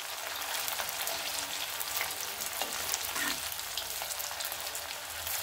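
Steady hiss and crackle of spice-coated cauliflower florets deep-frying in hot oil in an iron kadai on turned-down heat, with the florets turned now and then by a metal slotted spoon.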